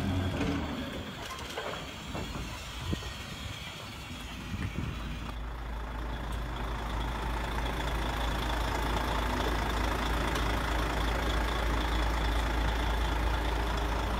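Simulated diesel engine sound of an RC model Scania truck, a steady deep drone that sets in about five seconds in and slowly grows louder as the truck rolls closer. A few light clicks and rattles come before it.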